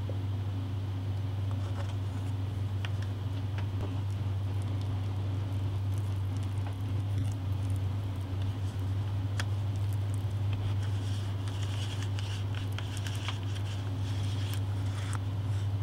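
Soft squishing, scraping and small clicks of spackling compound being mixed with gray acrylic paint in a small cup, busier in the second half, over a steady low hum.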